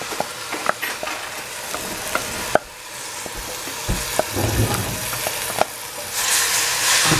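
Shredded cabbage sizzling as it is tipped into a hot stainless steel pot of rice noodles and oil, with sharp clicks and knocks of utensils against the metal. The sizzle grows louder from about six seconds in, once a wooden spatula starts stirring.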